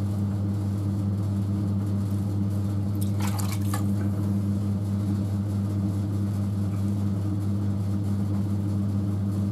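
Electric potter's wheel running with a steady low hum. About three seconds in comes a brief wet squelch of clay slurry as a hand works down by the wheel head.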